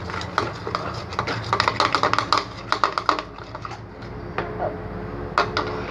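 A spoon clicking and scraping quickly against a container while slime mixture is stirred, dense for about three seconds and then only a few scattered clicks.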